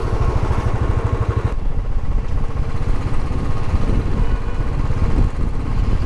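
Street noise: a steady low rumble of road traffic mixed with wind buffeting the microphone. The higher part of the sound drops away abruptly about a second and a half in.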